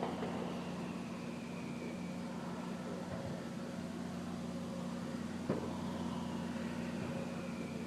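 Distant fireworks: a single sharp bang about five and a half seconds in, with a faint falling whistle twice, over a steady low hum.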